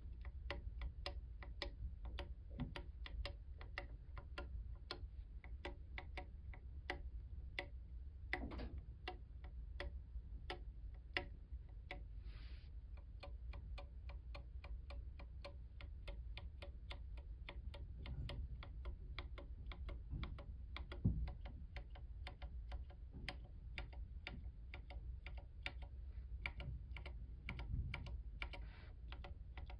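Linear mechanical keyboard switches being pressed one key at a time, giving short, muted clacks at a slow, even pace of about three a second.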